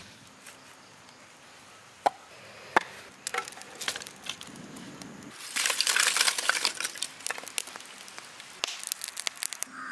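Wood fire burning: two sharp snaps of wood, then crackling and popping that grows dense about halfway through and thins to scattered pops near the end.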